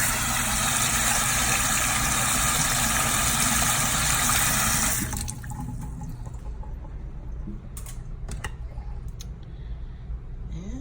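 Kitchen tap running into a sink for about five seconds, then turned off suddenly, with a few light clicks and knocks afterwards.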